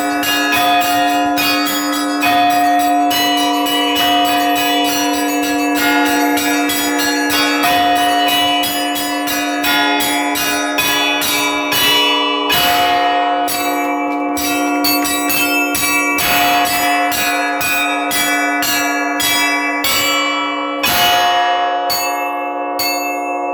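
Orthodox church bells rung by a single bell-ringer on a belfry: quick, dense strokes of the small bells over the steady ringing of the larger bells. A heavier stroke comes near the end, after which the strokes grow sparser.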